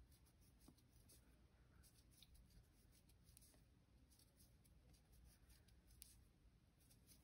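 Near silence, with faint scattered ticks and light scratching from a crochet hook and cotton yarn as single crochet stitches are worked.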